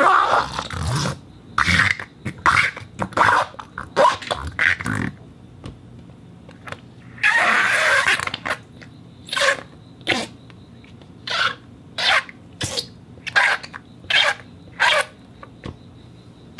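Wet silicone half balls rubbed with water, giving a series of short squeaky, squelching rubs, with one longer rub of about a second near the middle and a regular run of quick rubs after it.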